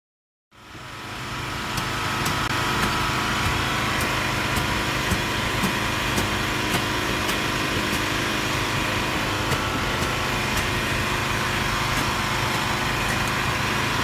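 Small engine running steadily, the hydraulic power unit feeding the rescue crew's hoses and cutting tools, with light sharp clicks every half second or so. It fades in about half a second in, after silence.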